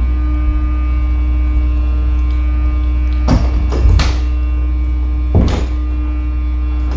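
Sewer pump-out truck's pump running, a loud, steady low buzzing hum. A few short noises cut through it in the middle.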